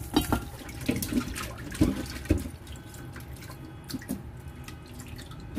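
Water splashing and sloshing as raw chicken thighs are rubbed and rinsed by hand in a metal bowl in a steel kitchen sink, washing off their slime. There are two louder knocks about two seconds in.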